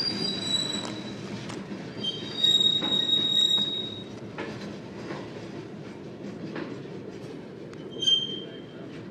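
Loaded centerbeam flatcars of a freight train rolling past: a steady low rumble of the wheels on the rails with high-pitched squeals, the loudest from about two and a half to four seconds in and another short one near the end, and occasional clicks.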